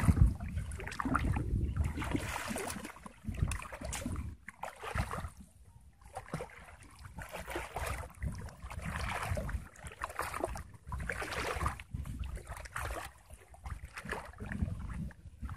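Water sloshing and splashing in irregular bursts as a person wades through shallow floodwater and hauls a fine-mesh fishing net through it.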